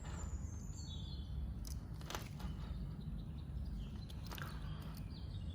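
A few sharp clicks of the Victorinox Swiss Champ's blades and tools being snapped open and shut, with short high bird chirps in the background and a low steady rumble.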